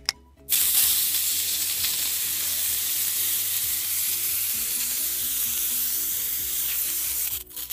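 Aerosol can of fake spray snow spraying in one long, steady hiss. It starts about half a second in and cuts off near the end.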